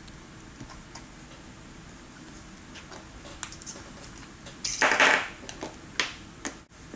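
Metal tool parts being handled and fitted into a Lindova XT tool's painted metal housing: light scattered clicks, then a short loud scraping clatter about five seconds in, followed by a few sharp clicks.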